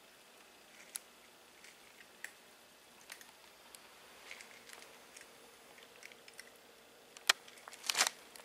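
A cat eating from a metal bowl: crunching and sharp clicks of food and bowl, loudest in a cluster near the end, after scattered faint ticks.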